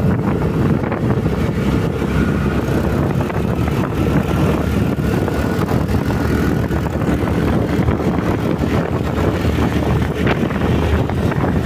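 Motor scooter running steadily at riding speed, its engine and road noise mixed with wind buffeting the microphone, with a faint steady whine.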